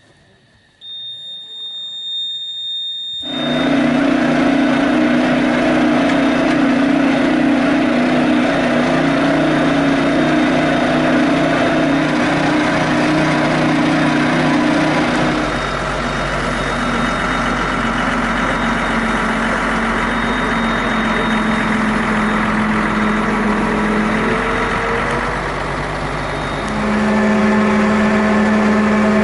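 A heavy tractor engine and the yarder's winch drive, the Steyr 8130 Turbo driving the TST Junior's wire-rope drums. It comes in suddenly about three seconds in and runs steadily. Its note changes about halfway through, when a deep rumble joins, and it grows louder again near the end.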